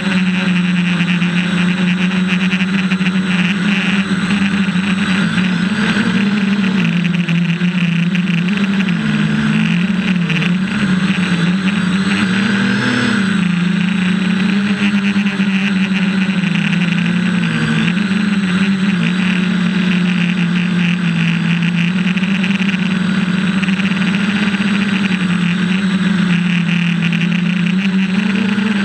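Quadcopter's electric motors and propellers whining steadily, heard close up from the drone's onboard camera. The pitch dips and rises several times as the throttle changes.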